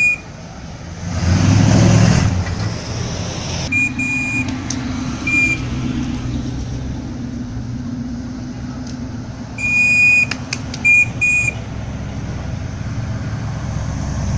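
American parade cars driving slowly past, one engine revving hard about a second in, then a steady low engine drone as the vehicles roll by. Short high-pitched toots come in clusters around four seconds in and again near ten seconds.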